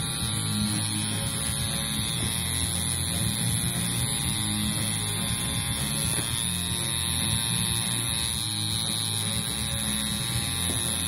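Coil tattoo machine buzzing steadily as it runs against the skin.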